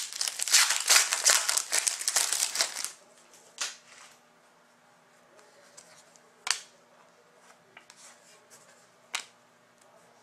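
Foil trading-card pack wrapper crinkling and tearing as it is ripped open, for about three seconds. Then quieter, with a few sharp clicks a few seconds apart as the cards are flicked through by hand.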